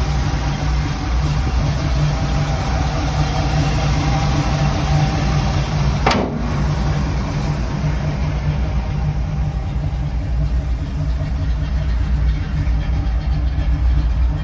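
1981 Jeep CJ7's engine idling steadily, with a single sharp click about six seconds in.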